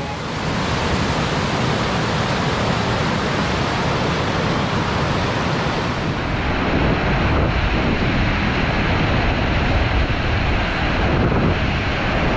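Loud, steady rush of whitewater rapids, turning duller about six seconds in.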